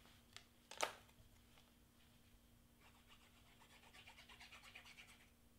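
Faint handwork sounds while gluing cardstock: a single sharp click about a second in, then a soft, rapid scratching for about two seconds as a fine-tipped glue bottle is worked over a piece of brown cardstock, over a faint steady hum.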